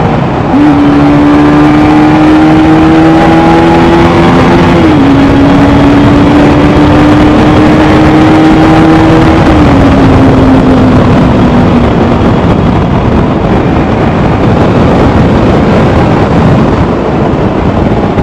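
Motor vehicle engine under way, its tone creeping up and dropping at two gear changes, under a loud, steady rush of wind and road noise. The engine tone fades about two-thirds of the way through, leaving the rushing noise.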